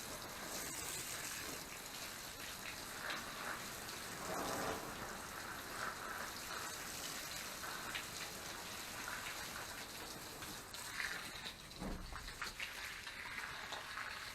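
Water pouring steadily onto soil and plants as greenhouse beds are watered.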